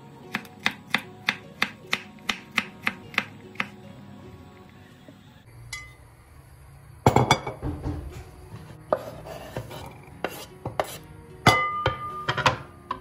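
A chef's knife chops a cucumber on a bamboo cutting board, with even cuts about three a second for the first few seconds. After a pause, a frying pan is handled over the board with irregular knocks and clatter. Near the end there is a sharp metallic clink with a short ring as the knife scrapes the diced cucumber into the pan.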